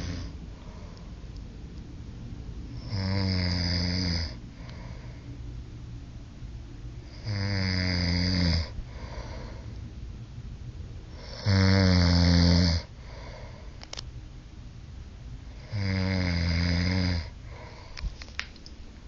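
A man snoring heavily in his sleep: four loud, rumbling snores about every four seconds, each lasting a little over a second, the third the loudest.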